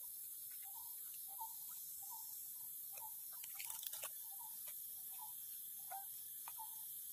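Forest ambience: a steady high-pitched hiss with a short chirp repeating roughly twice a second, and a few faint clicks.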